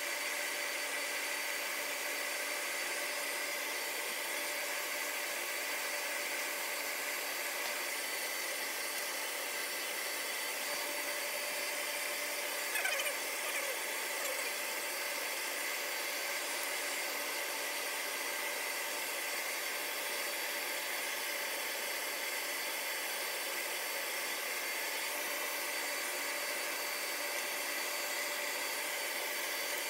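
Steady whir of running cooling fans: an even rush with a few faint steady whine tones over it, and a brief light clatter about 13 seconds in.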